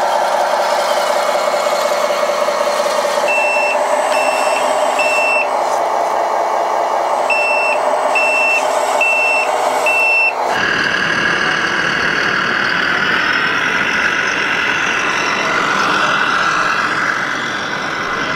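1/14 RC wheeled excavator (Lesu ET30H Volvo replica) running with a steady whine while its warning alarm beeps in two runs, three beeps and then four. About ten seconds in, the sound changes abruptly to a loud, noisy exhibition-hall din around an RC truck.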